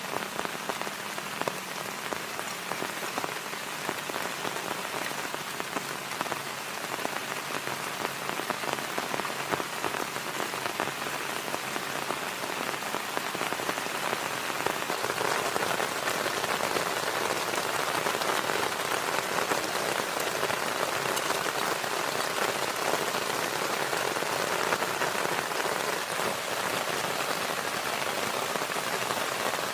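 Heavy rain falling steadily, growing louder about halfway through.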